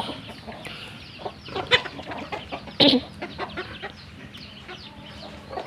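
Chickens clucking at feeding: a scatter of short calls, with two louder, sharper ones about a second and a half and three seconds in.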